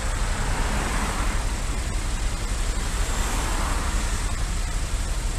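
Steady rumble of a motorcycle engine idling in stationary road traffic, with the even noise of the surrounding vehicles.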